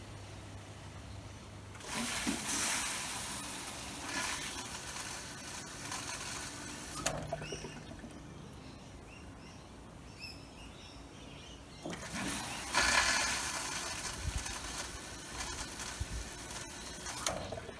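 Miele G4101 dishwasher taking in water in two rushes of about five seconds each, the fill starting and stopping again and again. This repeated fill-then-stop cycling is the fault, which the owner thinks lies in the water inlet.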